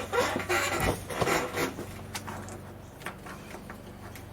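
Scraping, rustling handling noise for about the first two seconds, then a few light clicks.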